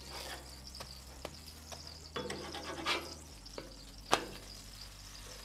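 Metal spatula scraping and clacking on a steel flat-top griddle as a grilled cheese sandwich is scooped up and turned, with a few separate scrapes and one sharp clack about four seconds in.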